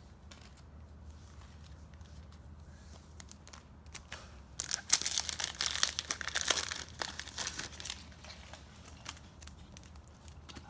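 Foil Match Attax card packet being torn open and crinkled. It starts about four and a half seconds in and lasts a few seconds, with sharp crackles throughout.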